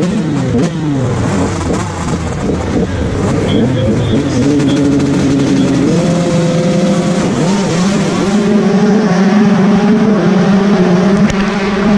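A starting line full of 125cc two-stroke motocross bikes revving. Several engines blip up and down over one another, then settle into steady held revs from about halfway through, the pre-start hold before the gate drops.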